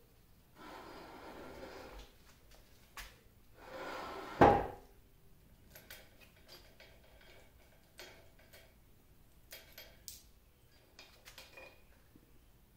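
Cast-iron lathe parts being worked by hand during disassembly: metal scraping as a part slides, a second slide that ends in a loud metal clunk about four and a half seconds in, then scattered small metallic clinks.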